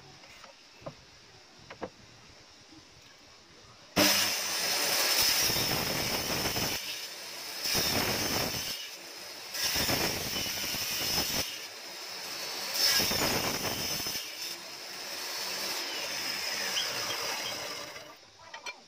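Table saw switched on with a sudden start about four seconds in, running with a steady high whine while a wooden board is fed through the blade, the sound swelling and dipping several times as the blade cuts, then switched off near the end. Before it starts, two small clicks from the mitre gauge being set.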